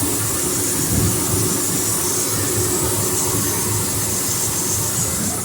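Case IH 8120 combine running steadily: a dense hiss over a low rumble.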